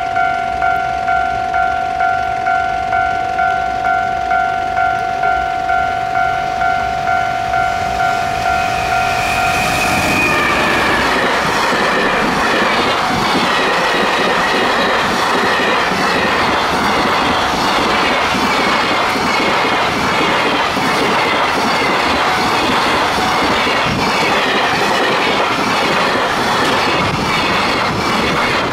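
A level-crossing warning bell rings in steady pulses about twice a second. About ten seconds in, a container freight train hauled by an EF210 electric locomotive reaches the crossing, and the continuous rumble of the passing container wagons drowns the bell. The wagon wheels click over the rail joints.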